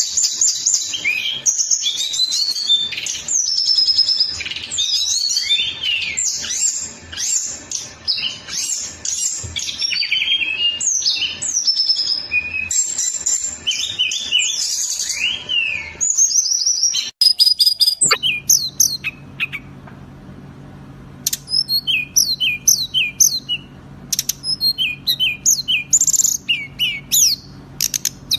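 Recorded songbird song, fast and dense: rapid, varied chirps, whistles and trills for a little over half the time. Then, about 17 seconds in, it cuts to another recording of sharp, repeated chirp phrases with short gaps over a steady low hum.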